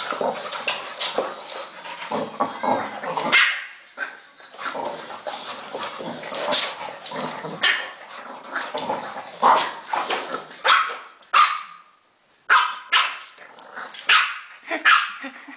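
French bulldog puppy play-barking, short high yaps and barks in quick runs, with a brief gap about twelve seconds in.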